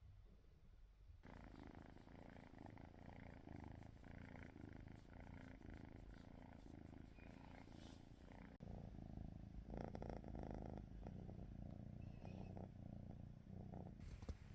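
A three-month-old kitten purring faintly, starting about a second in.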